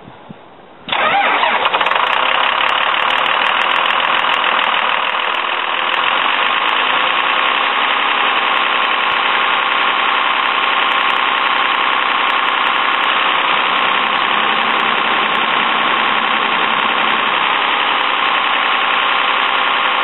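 Hydraulic cooling fan of a rear-engine school bus's diesel engine spinning at high speed: a loud, steady rush that comes in suddenly about a second in and holds. The charge air override sensor has been unplugged, which drives the fan to full speed.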